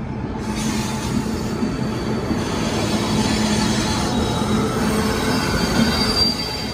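Saptakranti Superfast Express rolling into the terminal platform, with the steady rumble of its coaches and a high wheel squeal. It grows louder about half a second in.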